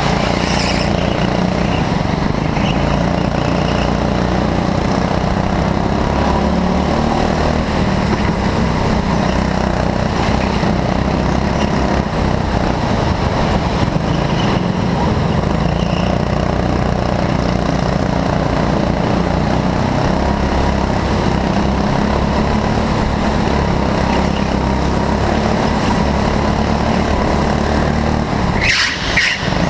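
Go-kart engine running steadily at speed, heard from on board, with other karts' engines around it on the track. A brief high-pitched squeal about a second before the end.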